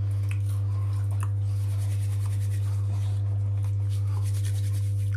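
A steady low hum, the loudest thing throughout, under faint scattered crunching and rustling of crisp corn puff snacks being chewed and handled.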